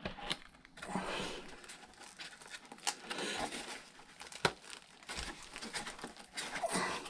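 Foam pieces of an RC model plane's fuselage rubbing and crinkling as they are handled and pressed together by hand, with irregular rustling and a few sharp clicks.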